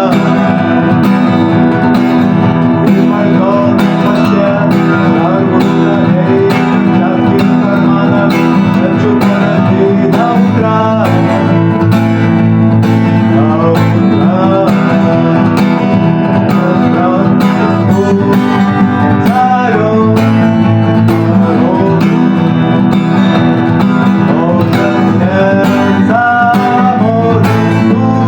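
Acoustic guitar strummed steadily and rhythmically, playing chords without a break.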